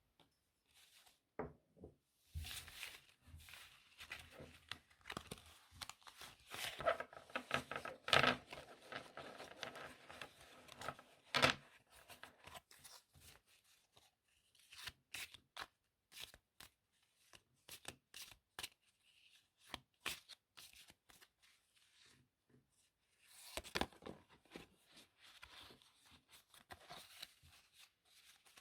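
Playing cards being handled: two spells of quick, crowded card clicks and rustles, one about two seconds in and one near the end, with scattered single clicks between.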